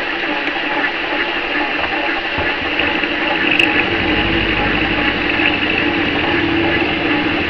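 Metal lathe running with its chuck spinning, a steady whirring hum.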